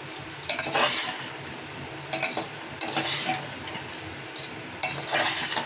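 A metal spatula stirring and scraping potatoes and soaked chana dal through fried masala in an aluminium pressure-cooker pot, in several separate strokes. The food is being fried in the spiced oil.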